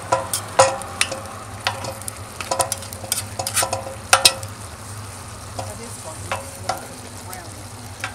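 A spoon stirring chili of onions, bell pepper and ground meat in a metal pot on a wood-fired rocket stove. It scrapes and knocks against the pot many times, the strokes growing sparser after about four seconds, over a steady sizzle of the cooking food.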